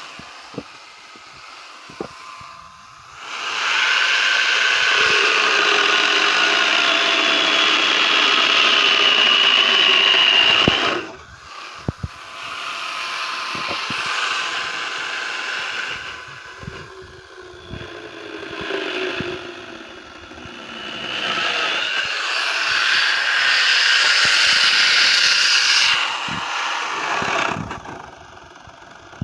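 Hitachi angle grinder fitted with a chainsaw attachment, cutting through birch bars. It spins freely with a steady whine, then the sound grows much louder and rougher under load for about eight seconds. It eases off and cuts more lightly for a while, then bears down hard again for several seconds before dropping back.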